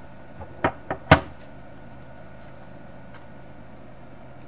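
Three short, sharp knocks in quick succession about a second in, the last the loudest, from a cardboard box and its contents being handled on a desk. Afterwards only a faint steady hum.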